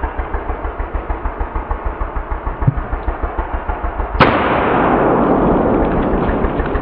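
A single blast from a 12-gauge Remington 870 pump-action shotgun about four seconds in, followed by a long rumbling decay. Before the shot there is a low, even throbbing at about five or six pulses a second.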